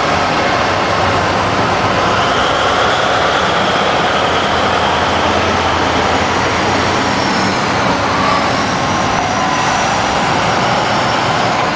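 Giant mining haul trucks running, a steady heavy diesel drone with faint whines that drift slowly in pitch.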